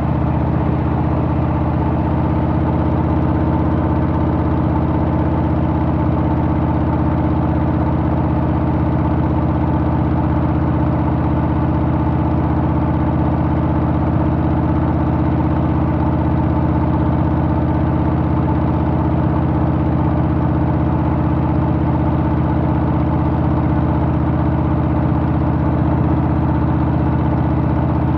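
Harley-Davidson Softail's Milwaukee-Eight V-twin engine running steadily at an even, unchanging pitch.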